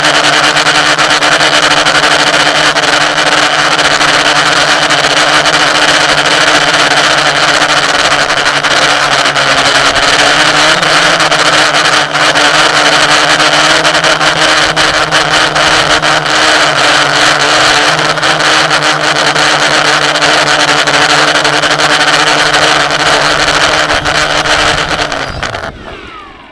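A loud, steady mechanical drone at a constant pitch over a hiss, fading out near the end.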